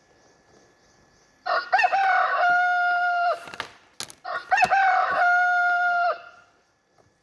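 Rooster crowing twice, two cock-a-doodle-doos, each ending in a long held note. There is a short sharp click between the two crows.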